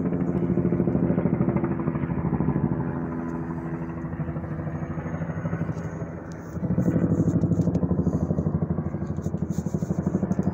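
Helicopter passing overhead, its rotor beating in a fast, even pulse over a low drone. It eases off a few seconds in and grows loud again about seven seconds in.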